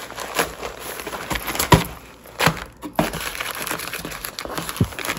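Plastic zip bag crinkling and rustling as it is handled and worked open, in irregular crackles, loudest a little under two seconds in.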